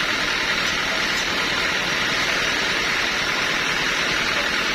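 Sawmill machinery running with a steady, unchanging noise.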